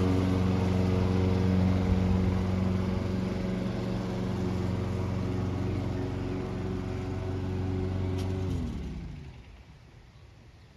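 Walk-behind gas lawn mower engine running steadily, then shutting off about eight and a half seconds in, its pitch sliding down as it spins to a stop.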